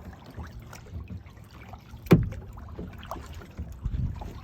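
Kayak paddling: low, uneven water and hull noise from paddle strokes, with one sharp, loud knock about two seconds in.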